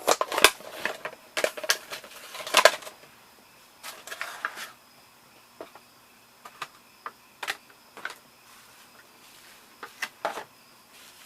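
A HeroClix booster pack being opened by hand: plastic packaging crinkling and tearing over the first few seconds, then scattered sharp clicks of small plastic miniatures and their bases being handled and set down.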